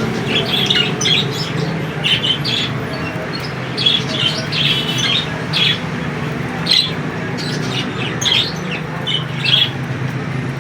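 Budgerigars chattering: many short, quick chirps and squawks, often overlapping, over a steady low hum.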